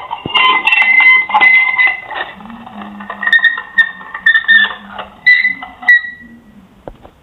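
Repeated high-pitched squeaking in short, broken bursts, stopping about six seconds in.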